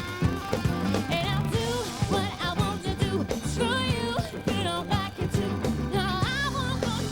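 Pop song performed live by a band with drums and bass, a woman singing over it.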